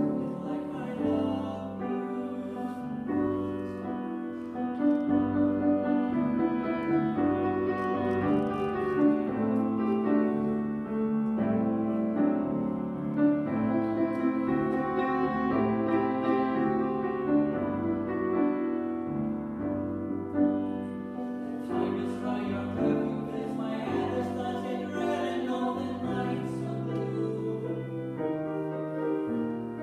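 A man singing a slow song to grand piano accompaniment.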